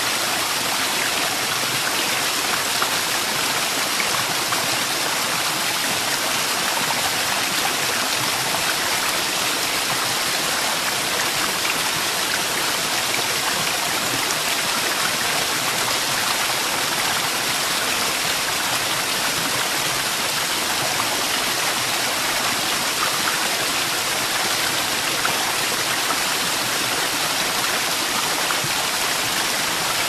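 Waterfall: a steady, unbroken rush of falling water, mostly a high hiss with little low rumble.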